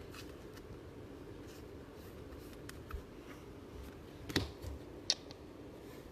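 Football trading cards being handled and shuffled by hand: faint rustling with a few soft clicks and snaps, the clearest a little past four seconds in and again about a second later.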